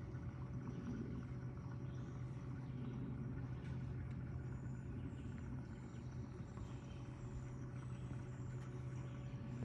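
Outdoor background dominated by a steady low hum, with a thin steady higher tone above it and faint short high chirps in the second half.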